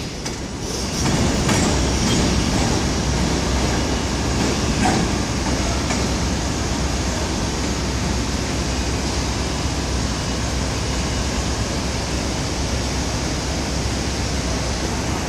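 R142A subway train pulling away along an elevated steel track, a steady rumble of wheels on rails.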